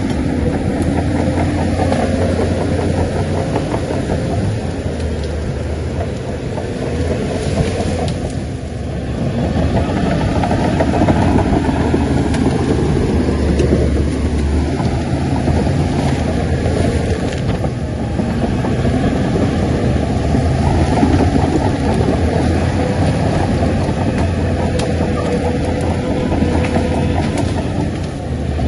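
Heavy diesel engine of earthmoving machinery running continuously. Its level dips and swells several times.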